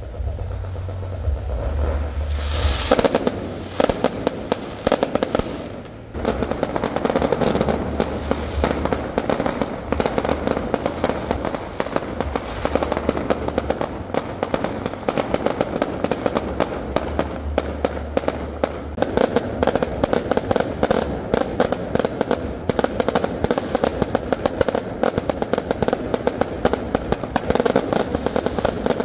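Aerial fireworks going off in a rapid, continuous barrage of bangs and crackles. It starts up about two and a half seconds in, with a short lull around six seconds.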